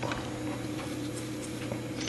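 Steady low room hum with a few faint, light clicks.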